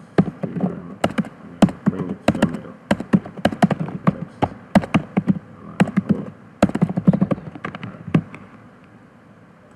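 Typing on a computer keyboard: quick, irregular key clicks that stop about eight seconds in.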